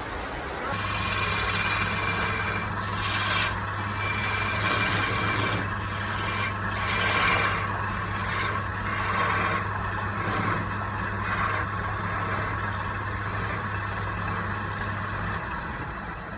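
An electric power tool's motor running with a steady hum while wood is scraped or sanded against it, in uneven strokes with short breaks. The motor starts just under a second in and stops shortly before the end.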